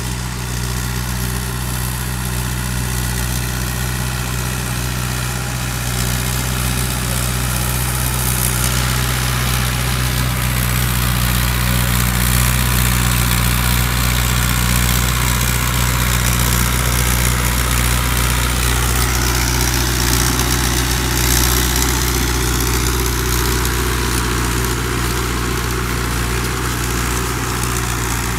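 Tractor engine running steadily as the rice-field stubble-rolling tractor drives its large cage wheels through the flooded paddy.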